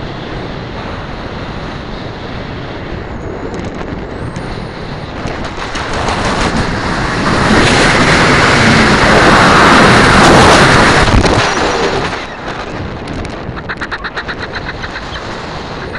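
Wind rushing over a camera worn on a flying peregrine falcon's back. It swells to its loudest about eight seconds in as she stoops in a steep dive, eases off after about twelve seconds, then flutters rapidly near the end as she levels out low.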